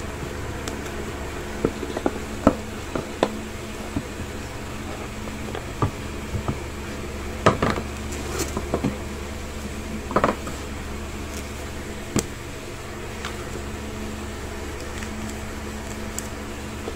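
Cardboard tablet box and its tissue-paper wrapping being handled as the lid comes off: scattered light taps, scrapes and rustles over a steady low hum.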